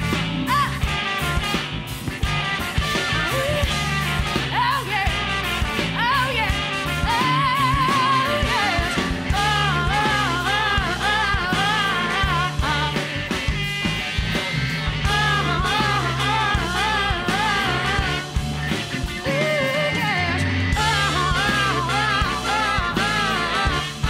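Bluesy rock band playing live, with drums, bass, guitar and a horn section of trumpet and baritone saxophone, and a woman singing lead over it.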